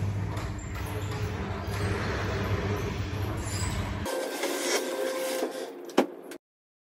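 Electric garage door opener running as a sectional overhead door rolls up its tracks: a steady low hum with rattling. The motor stops about four seconds in, leaving a lighter hiss and a sharp click near the end before the sound cuts off.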